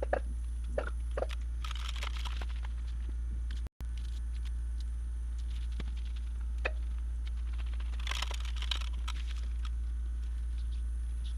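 Crinkling and rustling of carport tarp material and patch being handled, in two short spells, with scattered small clicks over a steady low hum.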